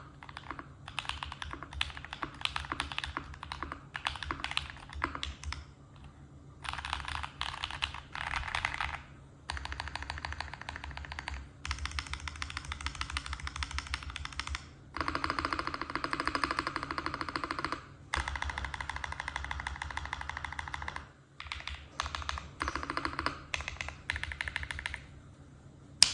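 Typing on a custom mechanical keyboard, an Akko ACR59 kit with lubed KTT Kang switches and GMK keycaps. The keystrokes come in bursts, with several long fast runs and short pauses between them.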